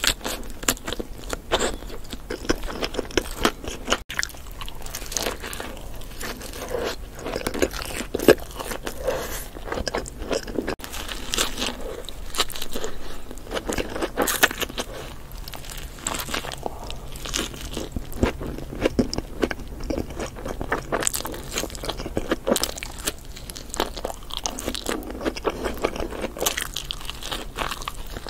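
Close-miked eating: crunchy bites into burgers and crispy fried food such as chicken nuggets, followed by steady chewing, with many small irregular crunches throughout.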